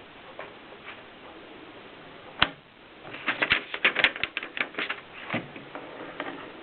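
Mignon 4 index typewriter clacking: a single sharp clack about two and a half seconds in, then a quick run of clacks over the next two seconds, and one more a little later.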